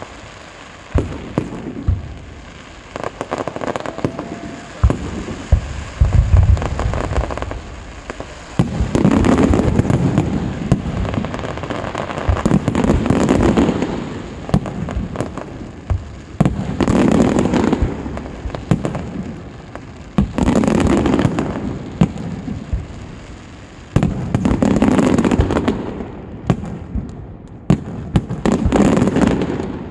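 Aerial fireworks display. Scattered sharp bangs come first, then from about nine seconds in, about six loud barrages follow roughly every four seconds, each starting with a sudden bang and dying away over a few seconds.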